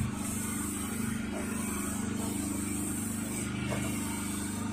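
A pressure washer's gas engine running steadily, a low even hum with no change in speed.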